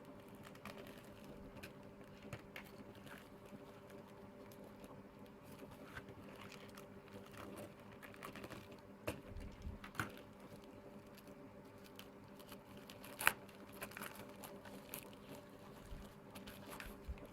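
Faint handling sounds of a small shipping package being opened: scattered light taps, clicks and crinkles of packaging, with sharper clicks about ten and thirteen seconds in. A faint steady hum runs underneath.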